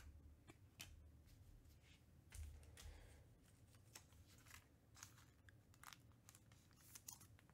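Faint clicks and short rustles of trading cards being handled and set down, with a few soft bumps on the table.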